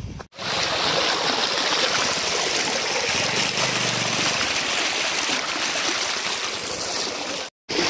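Shallow stream running over stones, heard close at water level as a steady, even rush of water. It starts abruptly just after the start and stops abruptly near the end.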